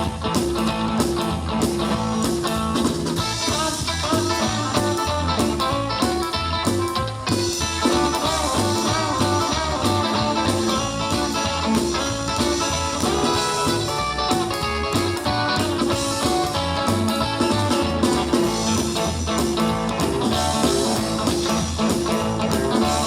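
Live rock and roll band playing an instrumental break, with a guitar lead over a steady beat.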